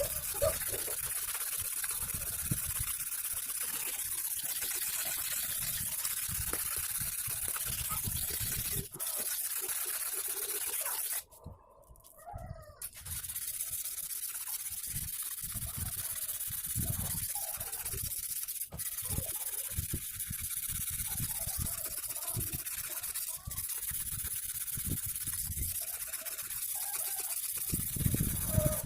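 Sickle blade being worked on a whetstone wetted with cough syrup: a steady wet scraping hiss that breaks off briefly about eleven seconds in, then resumes.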